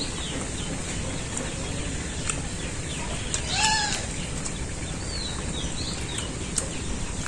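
Outdoor village ambience: a steady hiss with faint bird chirps and a few light clicks, and one short, high call that rises and falls about halfway through.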